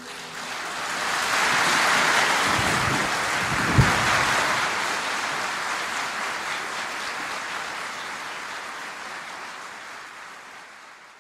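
Concert-hall audience applauding at the end of a piece, swelling over the first two seconds and then slowly fading out, with one brief louder sound about four seconds in.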